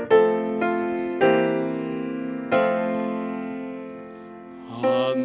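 Piano playing an introduction: a few chords struck one after another, the last one left to ring and slowly fade.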